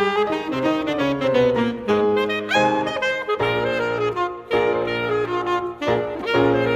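Background music: a jazzy saxophone-led tune with sliding notes over a rhythmic accompaniment.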